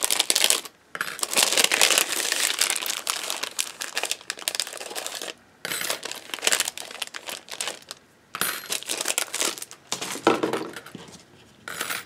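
Clear plastic die sleeve crinkling and crackling as it is handled, in irregular bursts with a few brief pauses.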